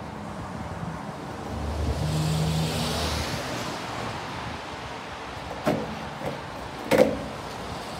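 Skateboard on brick paving: a low rumble swells and fades a couple of seconds in, then the board snaps with a sharp clack, a small knock follows, and the loudest clack comes about a second later as the board hits the ground on the trick's landing.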